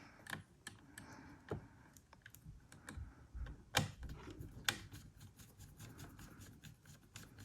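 Faint, scattered clicks and taps of a small screwdriver and an M.2 SSD being fitted and screwed into a laptop's drive slot, with two sharper clicks near the middle.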